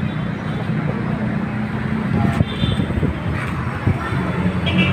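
Motorcycle engine idling steadily, with a few light clicks and knocks in the middle.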